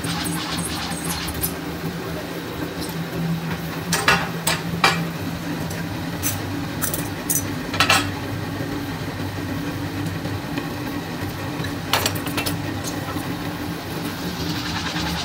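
Steady hum of a metal-forming press's machinery, with a few sharp metallic clinks as formed metal spoon bowls are handled at the die.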